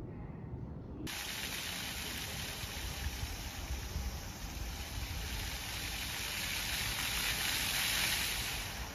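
Water spraying from a plaza floor fountain: a steady, dense hiss that starts abruptly about a second in and swells slightly toward the end.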